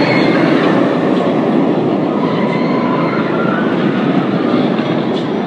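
Steel roller coaster train running along its track, a loud steady rumble.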